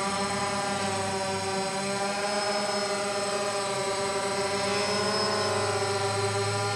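Small quadcopter drone's propellers buzzing as it lifts off and climbs. It makes a steady whine of several tones that wavers slightly in pitch about five seconds in.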